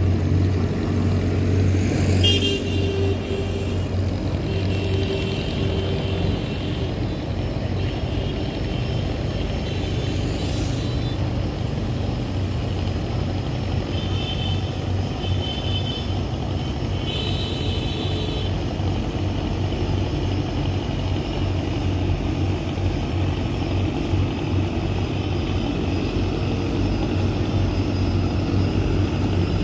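The diesel engines of a large multi-deck river passenger launch running in a steady low drone as it passes close by, with water churning at its bow. High-pitched tones come and go a few times.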